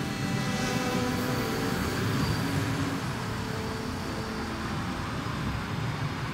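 A diesel passenger train passing close by, led by an FS ALn 668 diesel railcar: a steady rumble of wheels and running gear on the rails.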